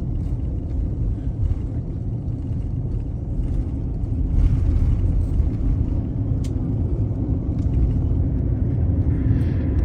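Airbus A350-900 cabin noise: a steady low rumble that grows a little louder about four seconds in, with a single sharp click a couple of seconds later.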